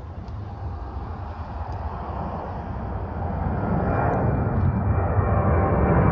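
Jet engines of a Southwest Boeing 737 airliner: a steady rushing noise that grows steadily louder as the plane comes closer, with a faint engine whine joining in over the last couple of seconds.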